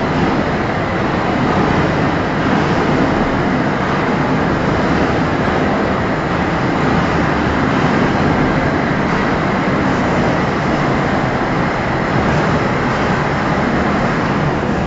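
An overhead crane running on its rails, a steady mechanical noise that goes on without a break.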